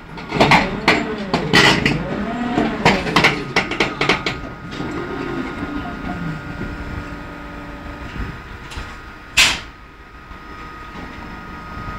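Large electric crawler rope shovel machinery working. Metallic knocks and clanks for the first few seconds, over low groaning tones that rise and fall in pitch. Then a steadier run with a thin high whine, broken about nine and a half seconds in by one short, loud, sharp burst.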